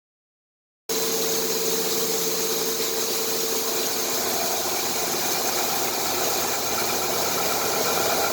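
Kitamura H-400 horizontal machining center milling 4330 alloy steel: a steady, noisy cutting sound with a held tone that shifts higher about four seconds in. It starts abruptly about a second in.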